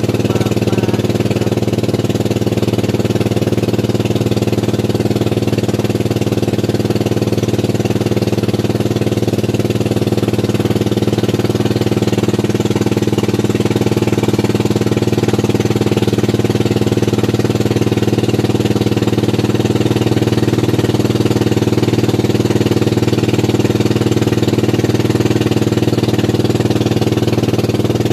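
Inboard engine of a motorized bangka running steadily while the boat is under way: a constant low drone that does not change in pitch or loudness.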